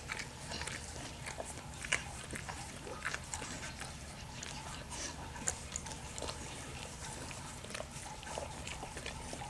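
Pit bull mother licking and nibbling her newborn puppy: irregular wet smacking and small clicks over a steady low hum.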